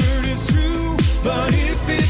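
Upbeat pop-style music with a steady electronic kick drum about twice a second.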